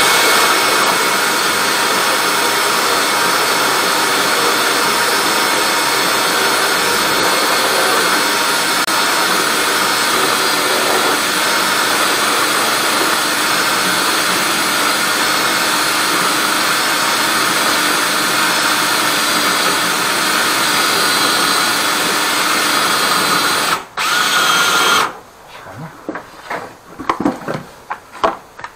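Electric drain-cleaning machine running steadily, its spinning cable working through a kitchen sink drain clogged with black grease. About 24 seconds in it cuts out, runs again for about a second and stops, leaving a few clicks and knocks of handling.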